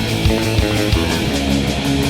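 Black metal recording: distorted electric guitar playing over drums that keep a fast, even beat.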